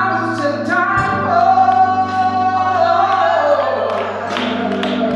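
A woman singing a slow gospel song over sustained instrumental chords, drawing out a long, high held note in the middle.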